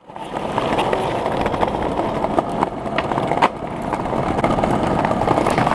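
Skateboard wheels rolling over brick paving: a steady rumble with a few sharp clicks.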